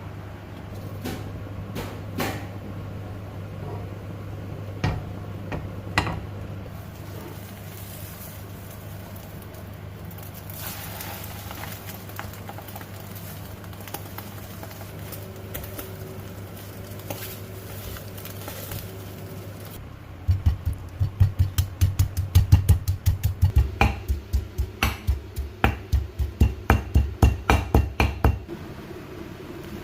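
Kitchen food preparation: a few scattered knocks and clinks of utensils over a steady low hum, then about two-thirds of the way in a fast, even run of knocks, about four or five a second for some eight seconds, like a knife chopping on a cutting board.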